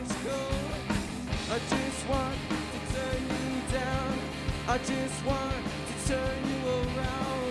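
Live rock band playing: a sung melody over two electric guitars, electric bass and a drum kit keeping a steady beat.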